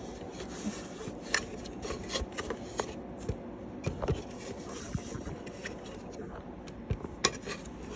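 Handling noises: light rubbing with scattered short clicks and taps, no motor running.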